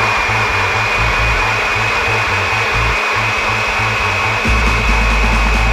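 Countertop electric blender running steadily, blending boiled carrots and milk into a smooth liquid, its motor giving a steady high whine.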